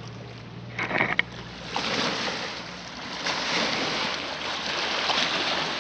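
Small lake waves lapping and splashing against the stones of a rocky shore, swelling and easing several times. A couple of sharp knocks about a second in.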